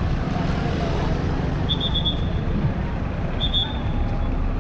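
Busy city street: a steady rumble of cars and motor scooters, with passers-by talking. Two short runs of high chirps come about two and three and a half seconds in.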